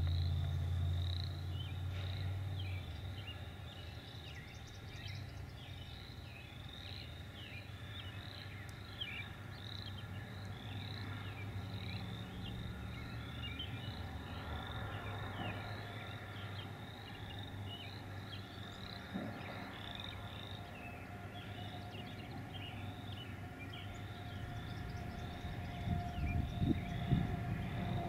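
Field ambience: a distant chorus of short, high chirping calls repeating several times a second. A low rumble sounds in the first few seconds, and a low rumble with a steady hum builds near the end, like an approaching vehicle.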